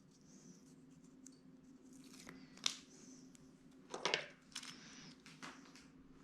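Faint handling sounds of a small sticker being peeled from its backing sheet and pressed onto a plastic toy: light rustling and scraping, with brief louder scrapes about two and a half and four seconds in.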